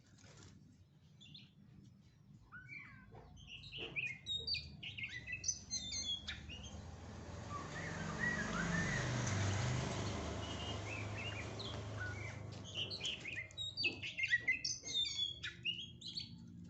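Oriental magpie-robin chirping and calling in short, quick notes, in two spells. Between the spells, for about five seconds, there is a steady rushing noise.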